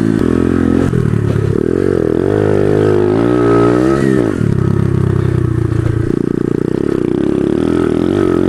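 Honda pit bike's small single-cylinder four-stroke engine running under way. The revs rise and fall with the throttle, drop sharply about four seconds in, then pick up again.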